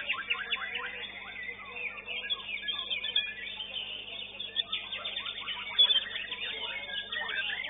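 Several caged songbirds singing at once, with quick chirps and trills overlapping, one louder note about six seconds in, over a faint steady hum.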